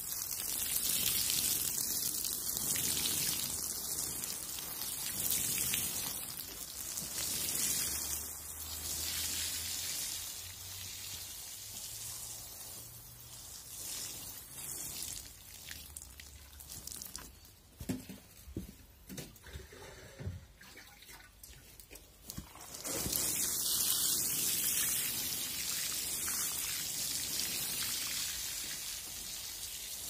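Water sprinkled in fine streams onto the soil of a freshly sown seed bed, a steady splashing hiss. It drops away about halfway through, with a few knocks in the lull, and picks up strongly again a few seconds later.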